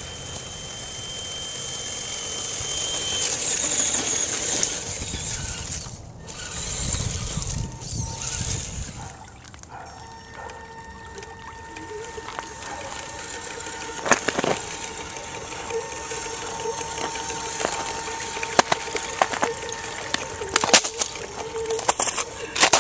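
Wind noise at first. From about ten seconds in, an Axial SCX10 RC crawler's electric motor and gears whine steadily as it drives through a shallow rocky stream, with water splashing and sharp clicks.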